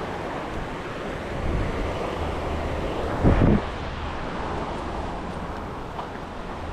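Steady rush of flowing river water, with wind buffeting the microphone. A brief, louder low rumble comes a little past three seconds in.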